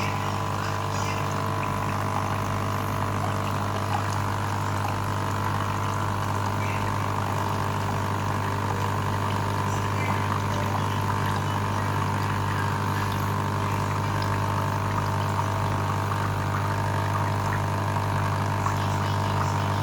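Small electric water pump in a hot-water appliance running with a steady, even hum while water flows through it.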